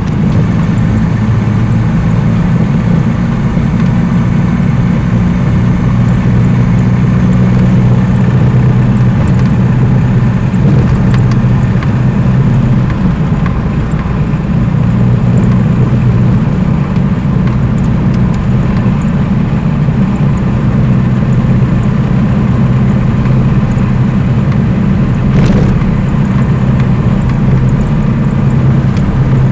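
1951 Lanchester LD10's four-cylinder engine running steadily while the car drives along, heard from inside the car with road noise. The engine note shifts a couple of times with speed, and there is a single brief click near the end.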